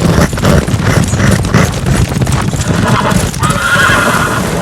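Horse hooves galloping: a fast, continuous clip-clop of hoofbeats, with a wavering high call near the end.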